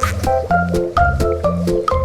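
Background music: a bright keyboard melody of short notes over a bass line, with a steady beat.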